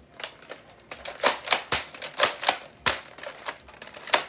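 A quick, irregular run of sharp plastic clicks and knocks from toy foam blasters being handled, about ten in four seconds, some in quick pairs.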